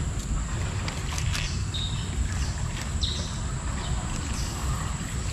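Steady low rumble of flowing river water and wind on an action camera's microphone, with a few short high chirps and faint clicks.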